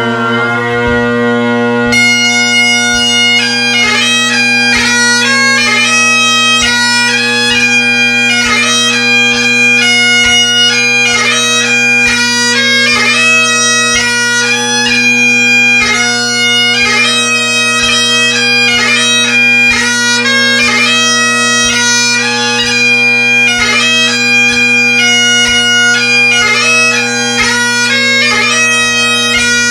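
Great Highland bagpipes striking in: the drones sound first, then the chanter joins about two seconds in and plays a tune of quick notes with rapid gracenotes over the steady drone.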